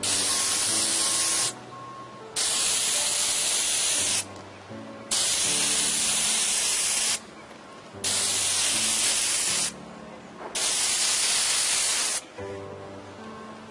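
Spray wand hissing as it sprays liquid acrylic roof sealer onto asphalt shingles, in five bursts of about one and a half to two seconds each with short pauses between, each starting and stopping sharply.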